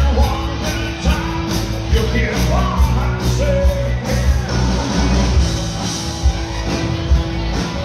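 A country band playing live: a singer with acoustic and electric guitars and a drum kit keeping a steady beat.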